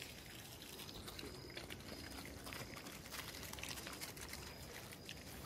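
Faint wet chewing and lapping of several dogs eating rice from plates, with small clicks scattered throughout.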